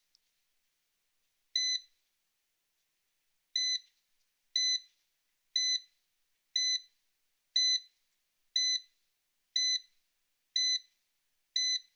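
Sonitrol security keypad beeping its exit-delay countdown while the system arms. Short, high-pitched single beeps sound, the first after a pause of about two seconds, then one every second.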